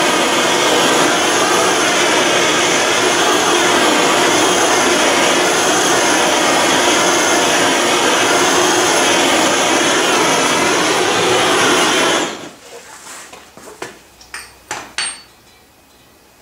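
Gas torch flame burning with a loud, steady hiss while heating a steel part to heat-blue it, shut off about twelve seconds in. A few light clicks and knocks follow.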